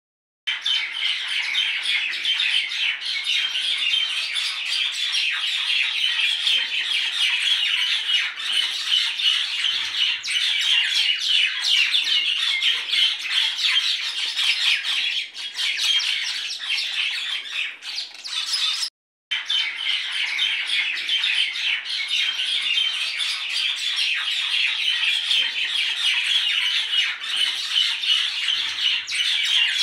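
Dense, continuous chattering and squawking of many birds, cutting out abruptly for a moment about two-thirds of the way through.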